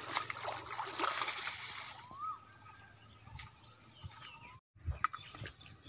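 Water splashing and sloshing as a black cloth bag is dunked and swished in shallow muddy water, lasting about two seconds, then quieter with only small sounds.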